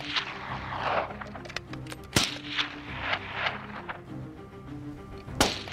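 Two rifle shots from the firing line, about three seconds apart, over steady background music.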